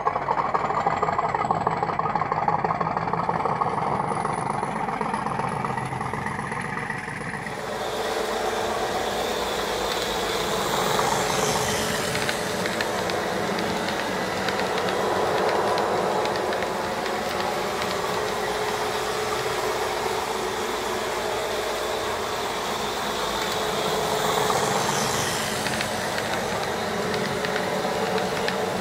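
Hornby HM7000 sound decoder playing a class 50 diesel's English Electric V16 engine through the model locomotive's small speaker: idling steadily, then, after a sudden change about eight seconds in, running steadily as the OO-gauge model cruises slowly round the track.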